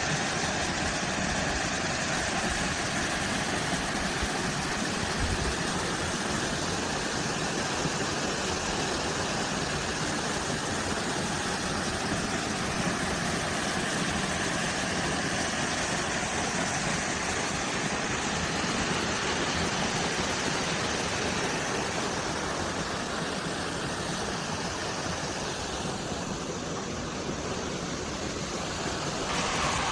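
Steady rushing noise of a waterfall, easing slightly near the end.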